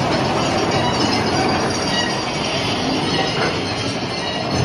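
Mine-train roller coaster cars running steadily on steel track over the chain lift, a continuous mechanical noise of wheels on rail and lift chain.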